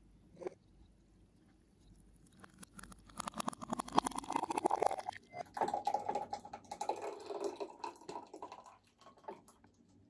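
A woman drinking a thick fruit smoothie: gulping, swallowing and wet mouth sounds, starting about two and a half seconds in and stopping near nine seconds.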